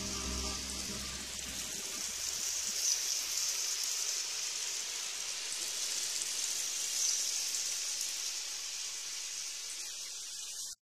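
Steady high fizzing hiss of water lapping and splashing against a camera held at the water's surface; it cuts off suddenly near the end. A low held tone fades out over the first two seconds.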